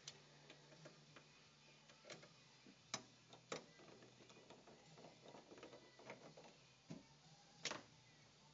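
Scattered sharp clicks and taps of a screwdriver and screws against a desktop computer's metal case and power supply, coming at irregular intervals over a faint steady low hum.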